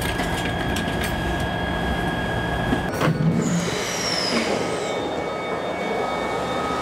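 Glasgow Subway train noise: a steady rumble with a constant high-pitched whine inside the carriage, then, after a cut, the train at a platform with a brief falling whine.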